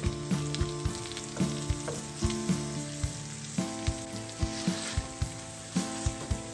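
Potato chunks and crumbled red seasoned meat sizzling and frying in a hot stainless-steel skillet, with the scrape and knock of a metal utensil working the potatoes in. Background music with a steady beat plays underneath.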